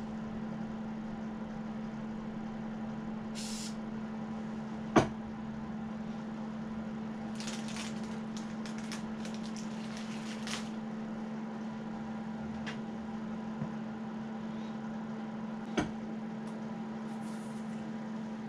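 Brown kraft paper rustling and crinkling in several short bursts as it is handled and folded, over a steady machine hum. A sharp knock about five seconds in is the loudest sound, with a lighter one near the end.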